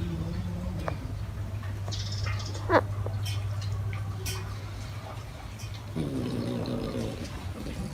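A sleeping French bulldog making sleep noises: a short squeak about three seconds in, then a low, drawn-out groaning whine near the end.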